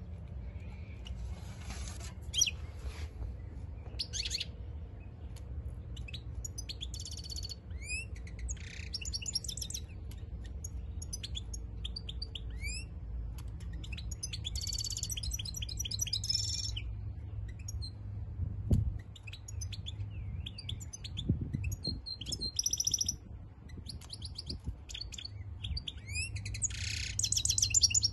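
European goldfinch song: bursts of rapid twittering with quick trills and buzzy notes, phrase after phrase, from a goldfinch coming into breeding condition. A low steady rumble runs underneath, with a dull knock about two-thirds of the way through.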